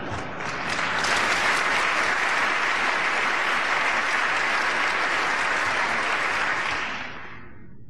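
Large audience applauding: it swells within the first second, holds steady, then dies away about seven seconds in.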